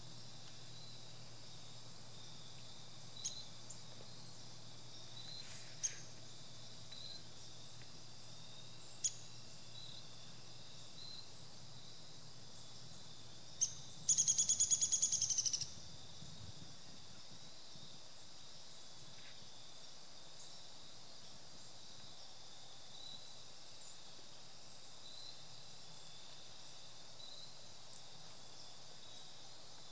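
Outdoor ambience of insects chirping steadily in a regular rhythm, with a few short bird calls. About halfway through, a bird gives a rapid run of high notes lasting about a second and a half, the loudest sound here.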